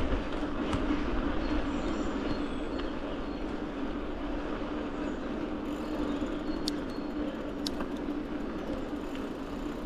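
Mountain bike rolling along a trail on Maxxis Forekaster and Aspen tyres: a steady hum over a rushing noise, with a couple of sharp clicks about seven and eight seconds in.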